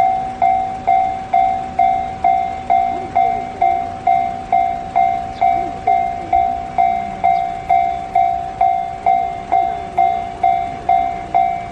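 Japanese level-crossing warning bell ringing, a single electronic clang tone repeating steadily a little over twice a second: the crossing signal warning of an approaching train.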